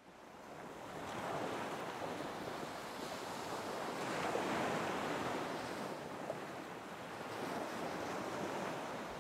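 Ocean surf: a steady rush of breaking waves that fades in over the first second, then swells and eases a few times, loudest about four to five seconds in.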